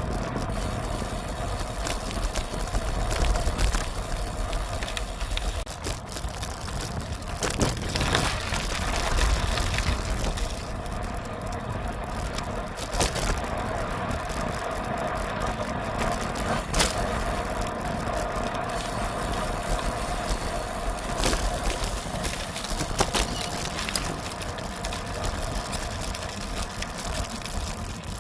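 Riding noise from a bicycle ride: wind buffeting the microphone and tyres rolling on the road, with a steady hum and scattered sharp clicks and knocks from bumps.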